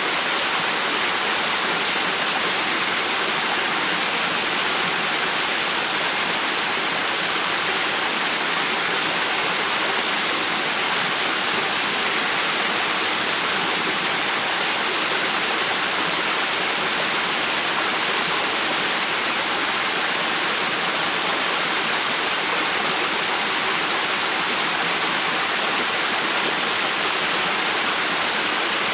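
River water flowing: a steady, even rushing hiss with no pauses and no separate splashes.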